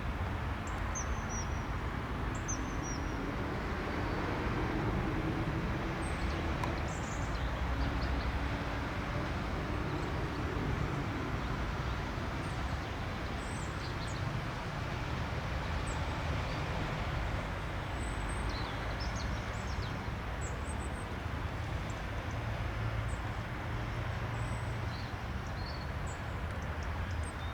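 Steady low rumble of a distant jet airliner's engines, with small birds chirping now and then over it.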